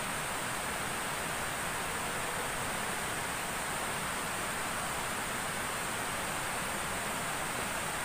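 Steady, even rush of flowing water, a constant hiss with no change in level.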